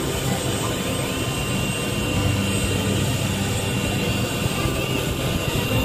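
A UH-60 Black Hawk helicopter's turbine engines and rotor running steadily on the ground, with a constant high turbine whine over the rotor noise.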